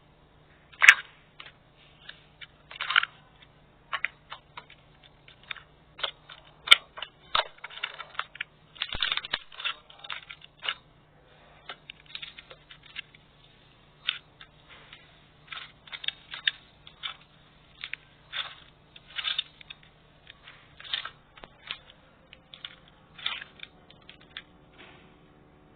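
Slime being squeezed and poked by hand, giving a run of irregular crunchy crackles and sharp clicking pops.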